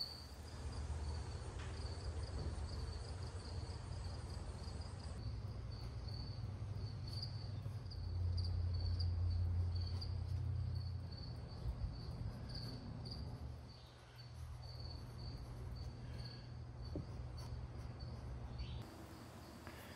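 A steady, high, finely pulsed insect trill runs over a low hum, and the hum swells for a few seconds around the middle.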